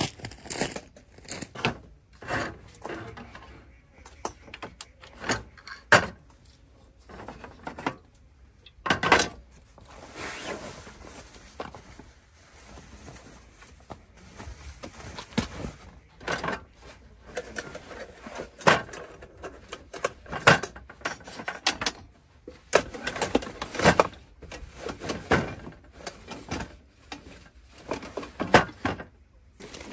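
Irregular clicks, knocks and rustling of objects being handled and set down, some strokes sharp and close.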